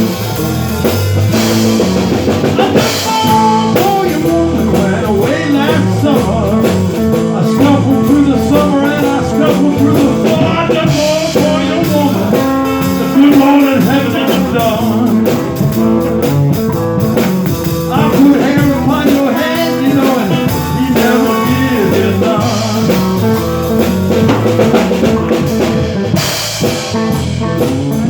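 Blues band playing an instrumental stretch of the song, with guitar over a drum kit keeping a steady beat.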